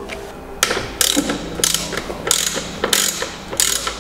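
Ratchet wrench clicking in repeated back-and-forth strokes, about two a second, turning a bolt on the engine's intake.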